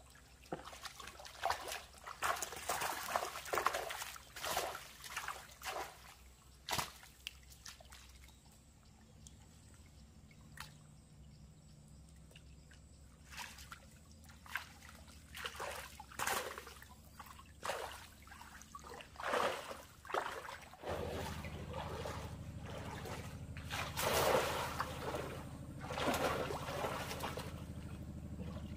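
Water splashing and sloshing in irregular bursts, with some trickling between them. A steady low hum comes in about three-quarters of the way through and continues under the splashing.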